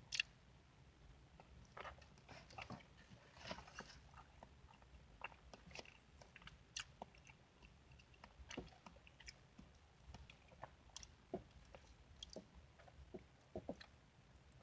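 Close-miked chewing and biting of a person eating: faint, irregular mouth clicks and crunches, a couple a second.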